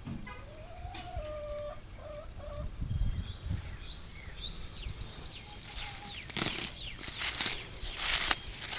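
Small birds chirping in short high falling notes, with a drawn-out animal call in the first couple of seconds. From about six seconds in, loud rustling and tearing of weeds and foliage as they are pulled by hand.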